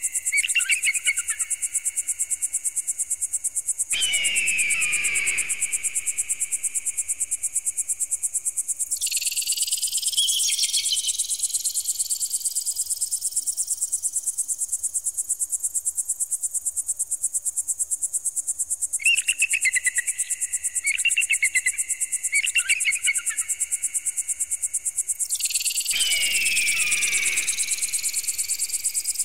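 Electronic bird-repeller sound: a fast-pulsing high-pitched tone runs throughout, overlaid with rising sweeps, a falling screech twice (about 4 s in and near the end), and bursts of stuttering chirps.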